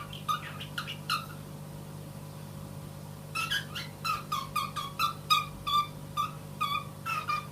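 A pet animal making short, high-pitched calls: a few at the start, then a run of about two a second from about three seconds in. A steady low hum sits underneath.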